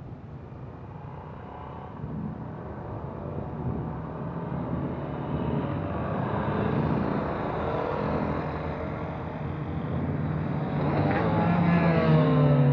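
A string of motorcycles riding past one after another, their engines growing louder as they approach. The loudest bike passes close near the end, and its engine note drops in pitch as it goes by.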